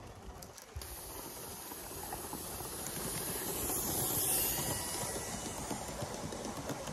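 Steam hissing from a gauge 1 live steam model locomotive. It starts suddenly about a second in, is loudest around the middle, then eases slightly.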